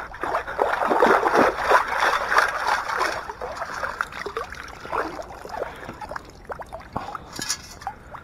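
Lake water splashing and trickling out of a metal-detecting scoop as it is lifted and shaken to sift out the find. The splashing is heavy for about the first three seconds, then dwindles to scattered drips and small splashes.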